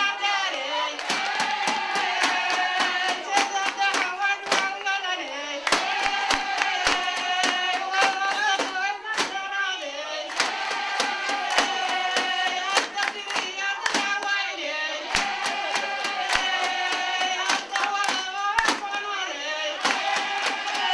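Somali traditional dance song: voices sing a melody with long held notes over steady, rapid hand clapping and drum beats.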